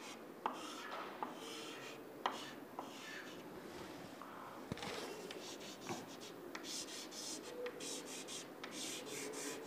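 Chalk drawing on a blackboard: faint scratching strokes with a few light taps.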